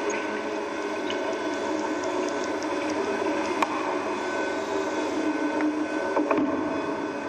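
Underwater water noise, a steady rush with several steady hum tones through it and a few sharp clicks, loudest click about three and a half seconds in.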